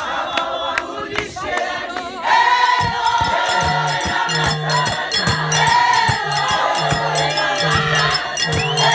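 A large women's church choir singing together in unison, with a steady percussive beat under the voices; the singing grows louder about two seconds in.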